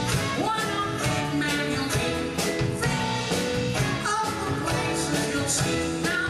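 A man singing into a microphone over band accompaniment, with a steady drum beat.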